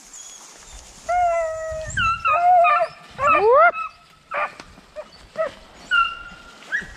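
A pack of deer hounds baying, several dogs calling over one another. A long drawn-out howl comes about a second in, rising yelps follow around three seconds, and short barks come after.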